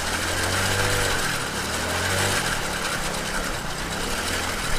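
Small motorbike engine running under power while its rear wheel spins in river water, churning up spray. The engine's hum shifts in pitch a little over a steady hiss of splashing water.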